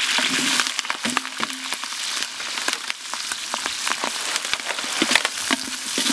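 Green chillies and spices sizzling and crackling in hot oil in a large aluminium biryani pot. Sliced onions go into the oil partway through, and near the end a ladle starts stirring them.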